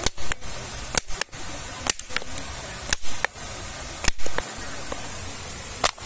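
The hard, woody shell of an unripe baobab fruit being knocked to crack it open: sharp knocks, mostly in pairs, about once a second.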